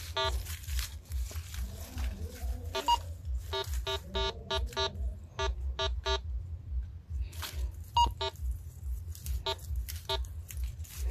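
Metal detector giving short, irregular electronic beeps as it is swept over the ground, some in quick runs of several, a sign that it is picking up buried metal targets. A low rumble sits underneath.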